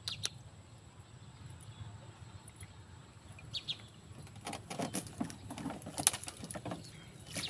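Wire-mesh fish trap being pulled up out of the water through bankside branches: irregular rustling and clattering, starting about halfway through after a quiet stretch.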